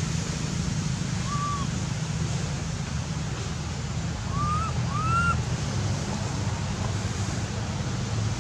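Three short whistled calls that rise and then fall, one about a second in and two close together near the middle, over a steady low rumbling noise.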